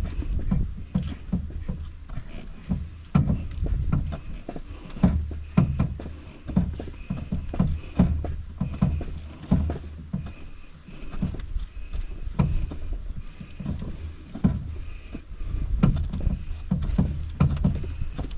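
Footsteps on a dirt forest trail, about two a second, heard as low thuds through a canoe carried overhead, with sharp clicks and knocks mixed in.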